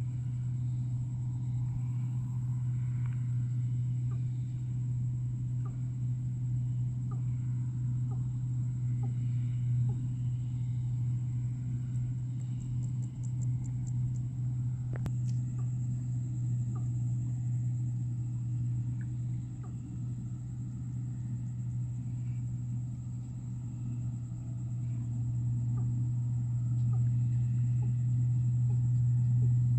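New Holland 8060 combine harvester running as it harvests rice, a steady low engine drone that holds without a break.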